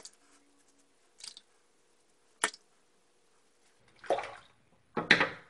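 Double-edge safety razor drawn through shaving lather and beard stubble: two noisy strokes about a second apart near the end. Before them come a couple of short, sharp clicks.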